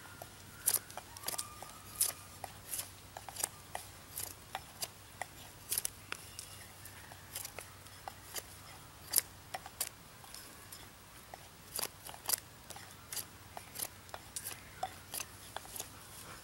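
Bark River Bravo 1.5 knife, with an A2 steel blade, whittling a wooden bow-drill spindle. It makes an irregular run of short, sharp shaving cuts, two or three a second.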